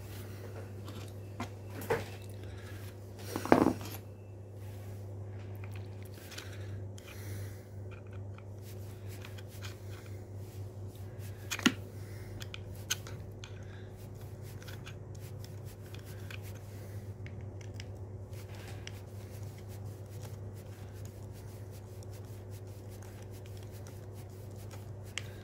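Scattered clicks and clinks of small tools and chainsaw parts being handled while a carburetor and its plastic cover are refitted and screwed down, with a louder knock about three and a half seconds in and a sharp click near twelve seconds. A steady low hum sits underneath.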